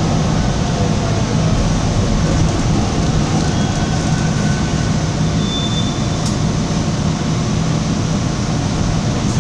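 Toronto subway train running, heard from inside the car: a steady rumble with a low motor hum, and a faint short squeal of wheels on the rails around the middle.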